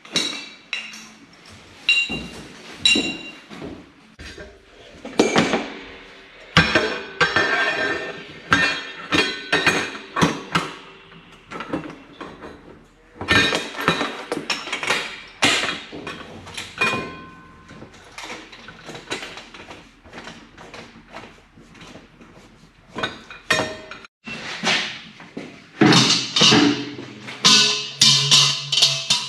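Stainless-steel milk pipeline, clamps and fittings clanking and knocking together as they are handled and fitted, many knocks leaving a short metallic ring. A steady low hum comes in near the end.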